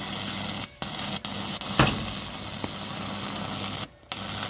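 Electric welding arc cutting through corrugated iron sheet: a steady crackling hiss over a low hum. It stops briefly twice, and there is one sharp crack about two seconds in.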